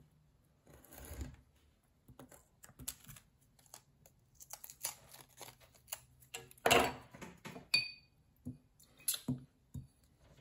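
Light taps, clicks and paper rubbing from hands working on a freshly glued collage page and picking up a paintbrush, with one louder clatter about seven seconds in.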